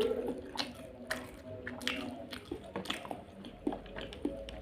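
Close-up mouth sounds of someone eating spicy instant noodles: chewing with wet smacks and clicks, about two a second.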